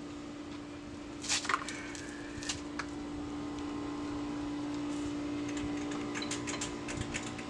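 Clicks and light rattles of parts being handled in a motorcycle's exposed wiring under the seat, with a scrape about a second in and a quick run of clicks in the second half, over a steady low hum.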